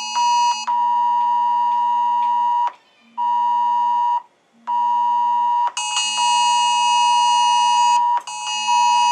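Several phones sounding the Wireless Emergency Alert attention signal together for the nationwide test, out of step with each other. A loud steady alarm tone drops out twice for a moment, and a higher tone from other devices joins in at the start and again for the last few seconds.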